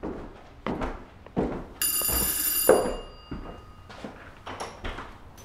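A few heavy footsteps, then a doorbell rings for about a second and its tones fade over the next second, with one loud thump while it rings.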